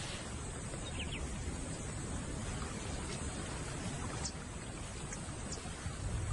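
Outdoor wetland ambience: a steady low rumble and hiss, with a few short, high bird chirps.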